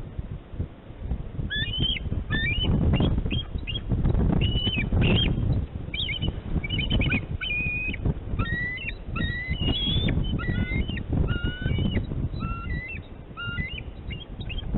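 A pair of bald eagles giving high-pitched alert calls at an intruder: a rapid series of short, chirping notes that begins about a second and a half in. Wind buffets the microphone underneath.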